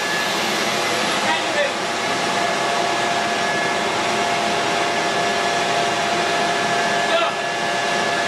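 Steady mechanical whirring with a faint high whine held at a constant level, from machinery running nearby; faint voices come in briefly about a second in and near the end.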